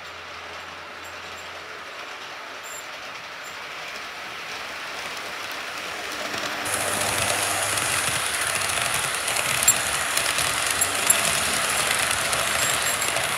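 Model freight train running past on the layout track, a steady rolling rattle of wheels on rails. It grows louder as the train nears and is loudest from about halfway in, with a few sharp clicks.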